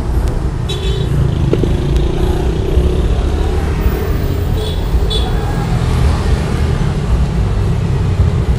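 Steady rumble of passing road traffic, with motorcycle and car engines, and a few short high-pitched tones about a second in and again about five seconds in.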